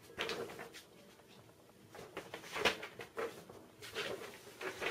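Paper rustling and flapping: a folded instruction booklet handled in a few short, irregular bursts, the loudest near the middle.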